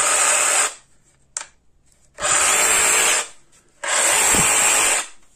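Craftsman V20 CMCS350B brushless cordless reciprocating saw run with no blade fitted, in three short trigger pulls of about a second each. It is free-running with no load, the motor and plunger driving up to a steady speed and winding down after each pull.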